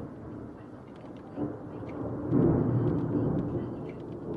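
Thunder rumbling, swelling about a second and a half in, loudest around the middle, then easing off.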